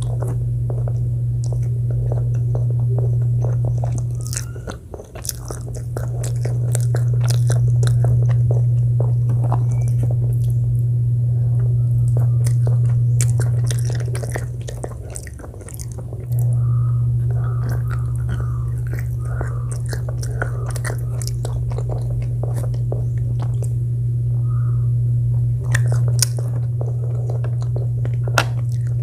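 Close-miked eating: biting and chewing with many small crisp crunches, over a steady low hum that dips briefly twice.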